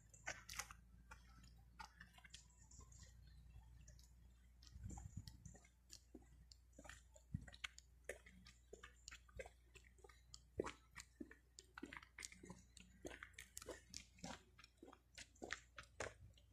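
Near silence, with faint scattered clicks and ticks at irregular intervals.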